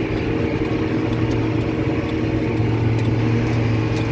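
John Deere tractor engine running steadily under load while pulling a Krone 1290 large square baler, with light ticks about twice a second over the drone.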